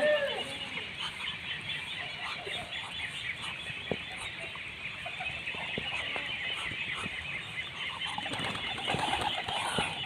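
A flock of pigeons feeding on grain scattered on a concrete floor: a busy, continuous patter of pecking and small bird sounds, with a few sharp taps and wing flaps. There is a short call right at the start.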